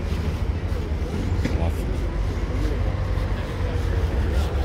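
Street ambience: a steady low rumble of a car moving off slowly, with a crowd of people chatting in the background.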